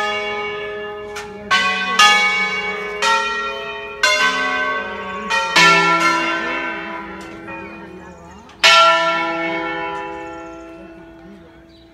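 Ring of five bronze church bells in E, cast by De Poli in 1949, rung by hand in the Brescian concerto style. Six separate strokes fall on bells of different pitch, each left to ring on. The last stroke comes a little under nine seconds in and slowly fades away.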